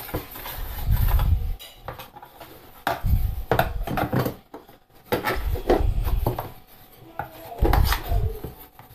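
A metal bench scraper scraping and clicking against a plastic tray as it is worked under a ball of pizza dough, with several bouts of dull bumps from handling.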